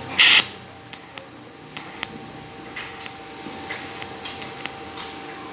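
Capacitor-discharge welder zapping a filler rod onto a stainless steel tank to close a hole: one loud zap of about a quarter second near the start, then a string of short, quieter snaps at irregular intervals over a faint steady hum.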